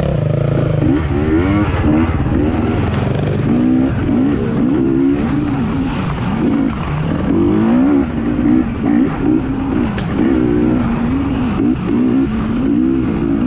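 Dirt bike engine being ridden hard around a motocross track, revving up and dropping back over and over as the rider accelerates, shifts and brakes. The pitch rises and falls roughly once a second.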